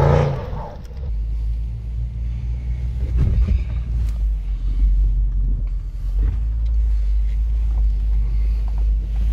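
Low, steady rumble heard inside the cabin of a 2020 Range Rover Sport driving on a rough off-road trail, with a few short knocks. The tail of an intro music sting fades out in the first half-second.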